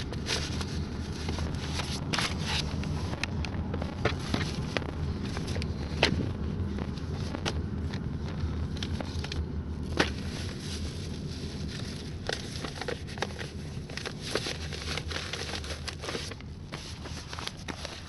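Car driving, with a steady low cabin rumble from the road and engine. Scattered sharp clicks and pops run throughout, a few louder ones standing out, around 2, 6 and 10 seconds in.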